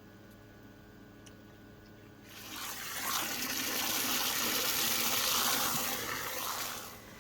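Water spraying, beginning about two seconds in and dying away after about four and a half seconds, over a low steady hum.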